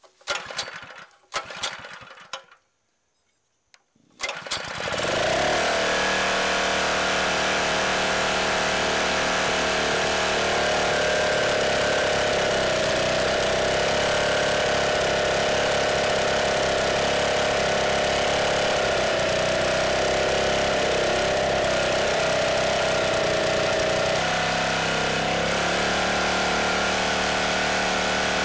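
Log splitter's small gas engine: a few brief sounds, then it catches about four seconds in, its note rising as it comes up to speed, and runs steadily. Its note drops slightly near the end.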